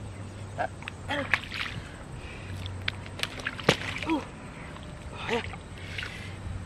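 Water sloshing and splashing around a person's legs as they move in shallow river water. Several short wordless 'oh'-like sounds come through, along with a few sharp clicks, the loudest about halfway through.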